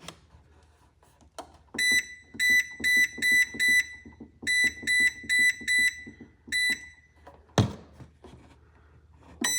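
Control-panel buttons on a Vevor ultrasonic cleaner beeping with each press as the temperature and timer are set: a dozen or so short, high-pitched beeps, mostly in two quick runs of about three a second, with a faint click under each. A single knock comes about three quarters of the way through.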